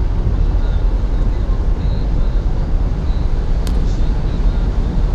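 Steady low rumbling background noise, with a single sharp click nearly four seconds in.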